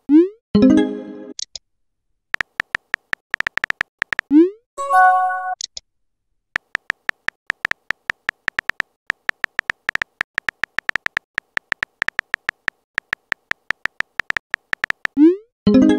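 Texting-app sound effects: quick keyboard tap clicks as each message is typed out letter by letter. Three times, near the start, about four seconds in and near the end, a short rising swoosh is followed by a brief chiming tone as a message is sent.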